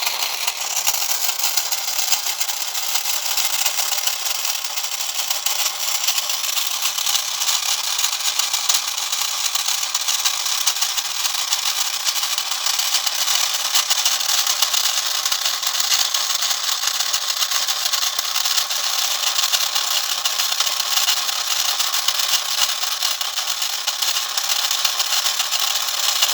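Braskit toy electric locomotive running: a steady, dense, high rattle of its small motor and drive, with fine rapid clicking throughout.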